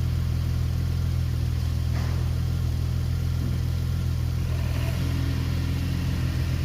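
Ford Mustang engine idling steadily, running with its fuel rail pressure sensor unplugged.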